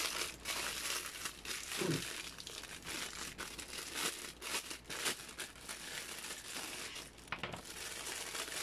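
Thin clear plastic packaging bag crinkling and rustling with quick crackles as plastic rack parts are worked out of it by hand.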